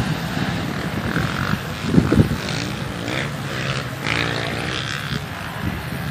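Dirt bike engines running and revving among a crowd of riders, with short surges in the revs and a wavering rise and fall in pitch near the middle.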